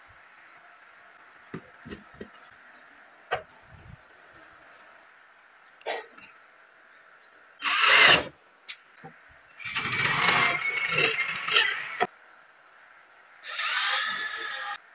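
Cordless drill driving screws through a metal drawer slide into a melamine-faced blockboard cabinet panel: a short half-second burst, then a run of about two and a half seconds, then another of about a second near the end. Before them come a few light knocks.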